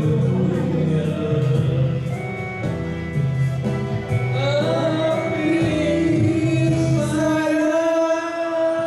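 A man and a woman singing a duet into microphones over an amplified backing track with a steady bass line. Near the end the bass drops away under a long held note.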